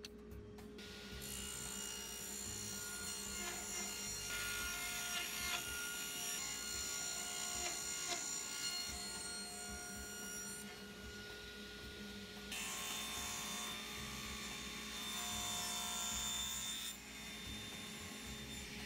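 Table saw fitted with a 60-tooth crosscut blade running and ripping Baltic birch plywood into strips, a steady motor and blade whine with the cutting noise changing over several passes.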